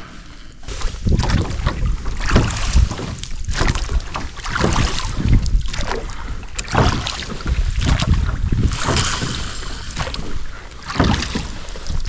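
Small rowboat being rowed: oars pulling through the water in repeated surges, with water splashing and lapping around the boat, and wind rumbling on the microphone.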